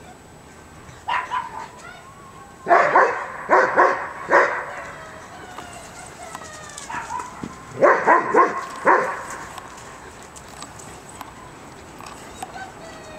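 German Shepherd barking in two runs of about four loud barks, the first about three seconds in and the second about eight seconds in, with a single bark before them and a few quieter ones between.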